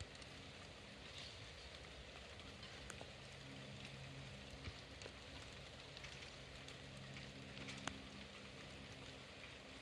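Rain falling on a terrace: a steady, faint hiss dotted with the ticks of single drops striking close by. A faint low hum comes and goes underneath.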